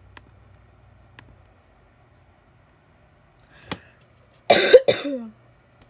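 A person coughing twice in quick succession about four and a half seconds in, the second cough trailing off in a falling voiced tone, after a few faint clicks.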